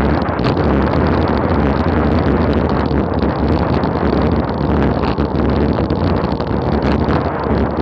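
Loud, steady rush of wind buffeting the microphone of a bike-mounted action camera on a road-bike descent at about 38 mph, fluttering rapidly throughout.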